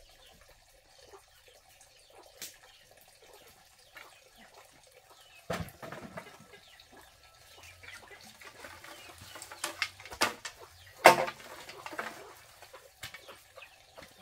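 Cut bamboo pieces knocking and clattering as they are picked up and handled, with rustling of dry straw and bamboo shavings. Two louder hollow knocks come about five seconds apart, the second the loudest.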